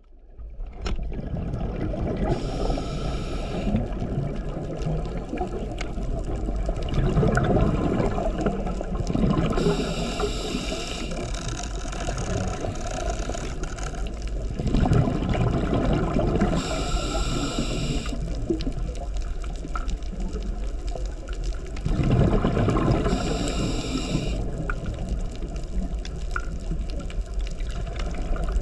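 Scuba diver breathing through a regulator underwater. A hissing inhale comes about every seven seconds, four times, and a low bubbling rumble of exhaled air fills the gaps between them.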